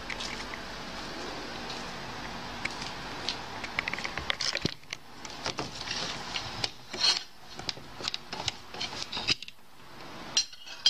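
Scattered clicks, scrapes and light knocks of a metal baking tray and kitchen utensils being handled, busiest in the second half.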